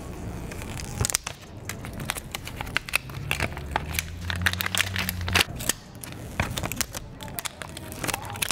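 Clear plastic protective film being peeled off new iPhones: a dense run of irregular crinkling crackles and sharp snaps of the thin wrap.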